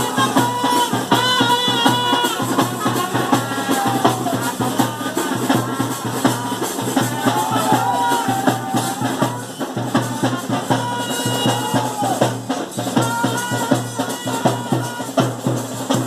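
Live bhuta kola ritual music: drums beaten in a fast, dense rhythm, with a melody over them that bends up and down in pitch.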